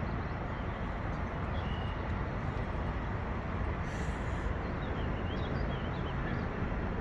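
Steady low rumbling outdoor background noise, with a brief high hiss about four seconds in and a few faint high chirps soon after.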